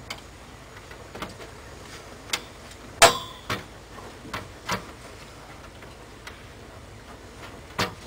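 Scattered plastic clicks and knocks, about eight spread irregularly, with one sharper snap that rings briefly about three seconds in: the push-pins of an LGA775 stock CPU cooler being pressed into the motherboard, some of them catching rather than seating.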